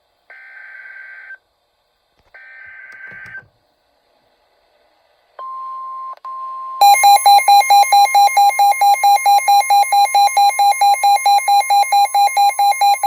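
Emergency Alert System warning tones: two one-second bursts of screechy digital header data (SAME), a pause, a steady beep from about five seconds in, then from about seven seconds a loud, rapidly pulsing alert tone at roughly five pulses a second.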